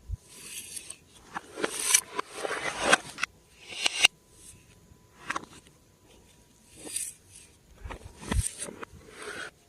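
Glossy slime being squished, stretched and poked by hand: irregular bursts of crackling with a few sharp clicks.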